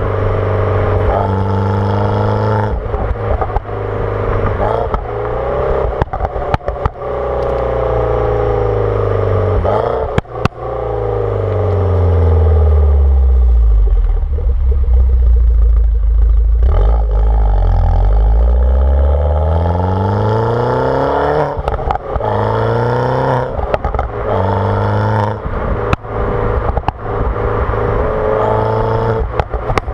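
Decatted R56 Mini Cooper S N14 turbocharged four-cylinder with a JCW exhaust and JCW tuning, accelerating hard through the gears: the pitch climbs and drops at each shift. About ten seconds in it slows to a low run and then pulls away again, with sharp crackles and pops from the exhaust between the pulls.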